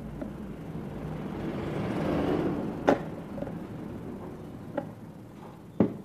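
Sharp clicks of a plastic hook being worked into a scooter's inner cover panel, twice, over a low steady hum and a swell of rushing noise that rises and falls in the middle.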